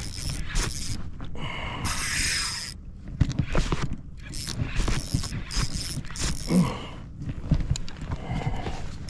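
Fishing gear handled on a kayak: a run of irregular clicks, rattles and knocks, with a short rushing hiss about two seconds in.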